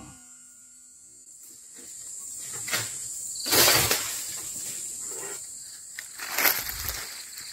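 Crunching, rustling steps through dry leaf litter come in several short bursts. Under them runs a steady, high-pitched night insect trill.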